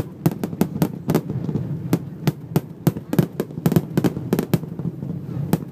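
Fireworks going off in quick succession, a rapid run of sharp bangs, several a second, over a steady low rumble.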